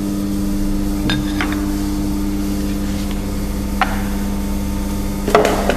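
Busbar punching machine's motor running with a steady hum, while a few light metal clinks and knocks sound as a copper busbar is slid into place against the guides, the sharpest knock near the end.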